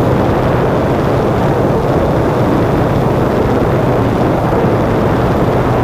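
Yuneec Typhoon G quadcopter's propellers and motors running steadily in flight, a loud even rushing hum picked up by the camera it carries.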